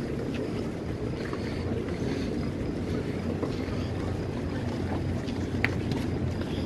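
Steady low rumble of a large crowd walking outdoors, with wind buffeting the microphone; faint scattered ticks and one sharp click about five and a half seconds in.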